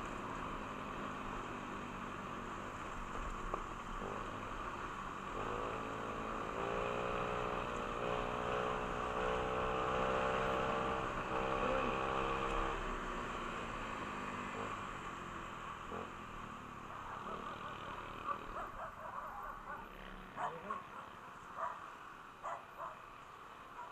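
Motorcycle engine running on the move, its pitch rising as it speeds up through the middle, then dropping back to a lower, quieter running. Several short, sharp sounds come near the end.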